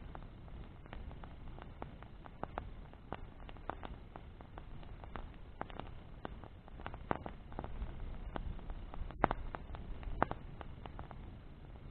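Wood bonfire burning, with irregular crackles and sharp pops from the burning wood, the loudest two about nine and ten seconds in, over a steady low rumble.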